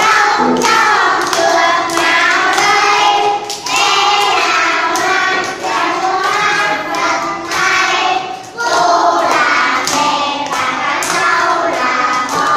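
A group of young children singing together, loud, with hand claps and thumps mixed in.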